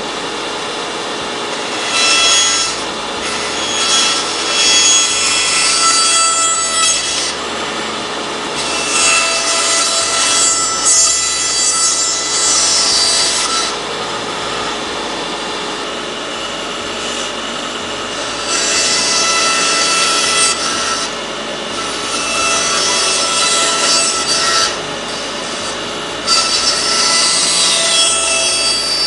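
Bandsaw running with a steady hum while its blade cuts a tight curve through a thick wooden board. The cutting noise comes in four spells as the board is fed into the blade, dropping back to the hum of the running saw in between.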